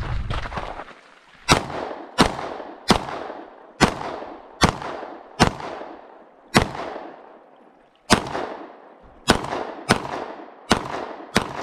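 A semi-automatic pistol fired at an unhurried pace, about a dozen single shots spaced roughly half a second to a second and a half apart, each with a short echo trailing off. A low rumble fades out during the first second, before the first shot.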